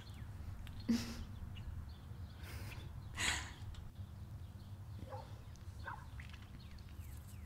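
Quiet outdoor ambience: a low steady rumble with a few faint bird chirps. A brief knock sounds about a second in, and a short breathy rush of noise follows around three seconds in.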